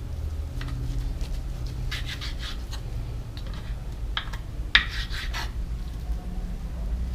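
A cooking utensil scraping and rubbing in a pan in short strokes, with one sharp clink about five seconds in, over a steady low rumble.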